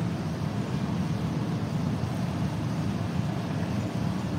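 Steady low rumble of supermarket background noise with no distinct events.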